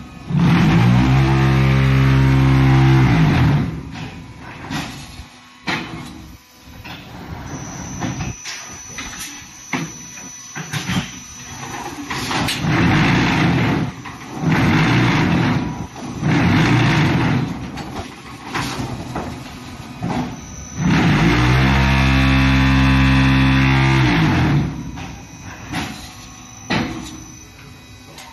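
Concrete paving-block machine working through its cycle. Twice, about a second in and again about twenty seconds in, its vibration motors run for about three seconds as a loud, steady hum. Between these come shorter bursts of mechanical noise and knocks.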